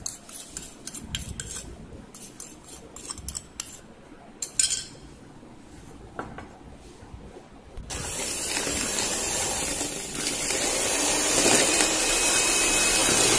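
A spoon scrapes and taps powdered sugar off a plate into a plastic bowl with light clicks. About eight seconds in, an electric hand mixer starts and runs steadily, getting louder a couple of seconds later, as it beats egg yolks with the sugar.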